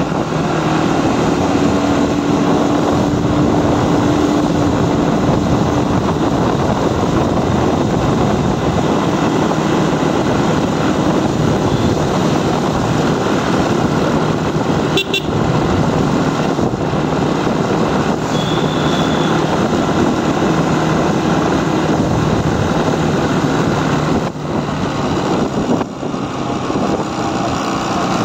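Motorcycle engine running steadily under wind rush on the microphone while riding along a road. Two brief, high beeps sound about halfway through.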